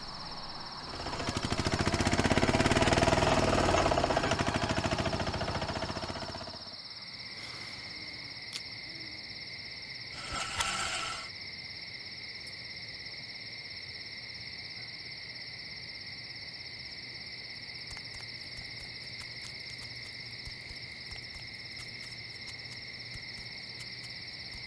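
Crickets chirping steadily in the night. In the first six seconds a loud rapidly pulsing rumble swells and fades, and a short sound follows about ten seconds in.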